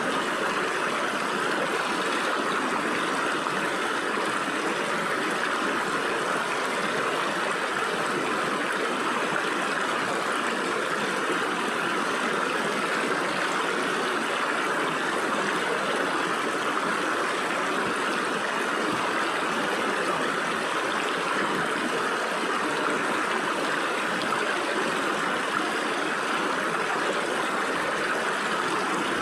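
Stream water flowing and splashing through gaps between rocks, a steady even rushing without pause.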